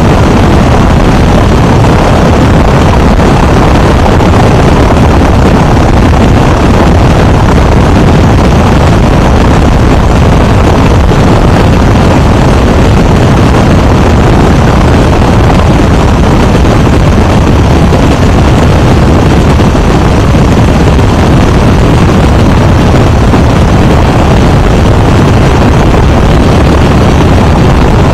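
Great Lakes biplane's propeller engine running steadily, heard very loud and close, near overloading the microphone.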